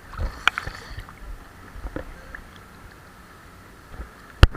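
Swimming-pool water moving, with a few small splashes and knocks, then one sharp, loud click near the end.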